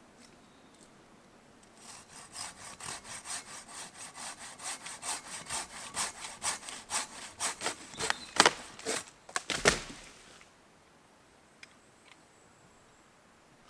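Hand saw cutting through wood with a steady back-and-forth rhythm, about three strokes a second for some eight seconds, ending in a couple of louder sharp cracks.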